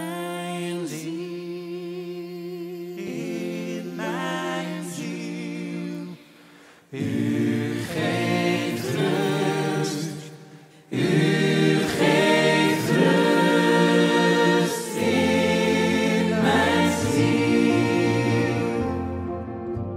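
Choir singing: at first one or two voices sing in turn. About eleven seconds in, the full group of singers comes in, louder and fuller, and it thins out near the end.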